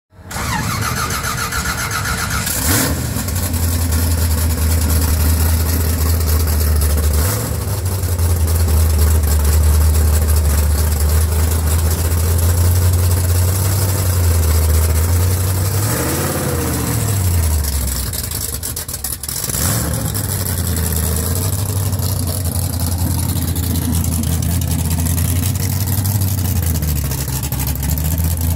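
1962 Chevy II gasser drag car's engine idling loudly, blipped up and back down once about halfway through and again briefly near the end as the car pulls away.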